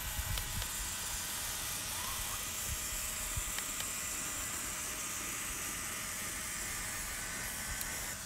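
Small electric motor of an RC truck whirring steadily while its tyres churn through shallow water and thin ice, with a steady hiss and a few faint clicks.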